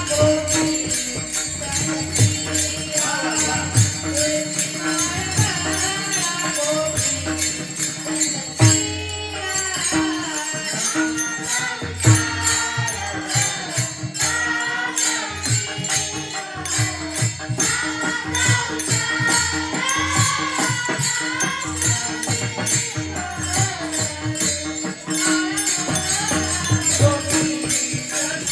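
Devotional Varkari kirtan singing, a voice carrying a bending melody over jingling hand cymbals and a drum keeping a steady beat, with a steady held drone note underneath.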